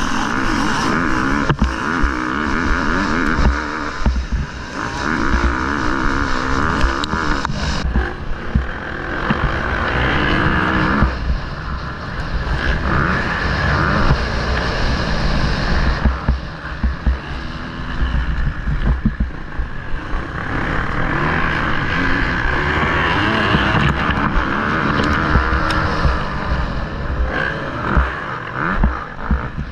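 Motocross bike engine heard from on board, revving up and dropping back again and again as the rider works the throttle around the track. Wind rushes over the microphone, and short knocks come from the bike hitting bumps.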